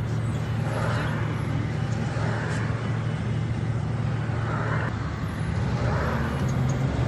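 Scania OmniLink CK94UB city bus heard from inside the passenger cabin while driving: a steady low engine hum over road and tyre noise, with other traffic passing by.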